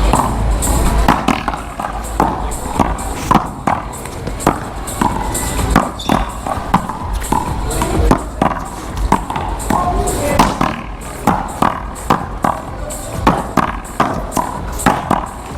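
One-wall paddleball rally: an irregular string of sharp smacks from paddles striking the rubber ball and the ball hitting the wall, with background music and voices underneath.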